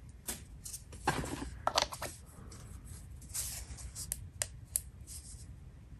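Handling noise from a percussion massage gun and its plastic attachment heads: scattered light clicks, taps and rustles as a head is fitted onto the gun.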